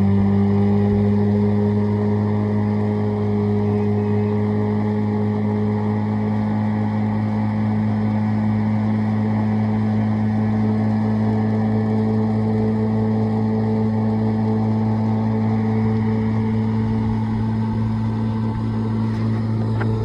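Boat engine running at a steady speed, a constant low drone.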